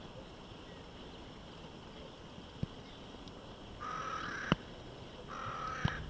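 A crow cawing twice, near the end: two harsh calls, each under a second long, with a few sharp clicks around them.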